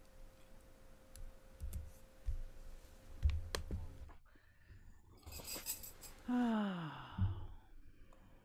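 Faint scattered clicks and soft low thumps, with a faint steady hum that stops about four seconds in. About six and a half seconds in, a person's voice slides down in pitch briefly, like a sigh.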